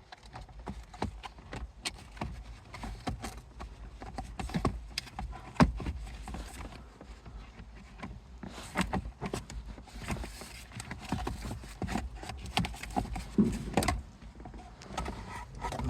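Irregular clicks, taps and knocks of plastic console trim being handled and pried loose, with a sharper knock about five and a half seconds in.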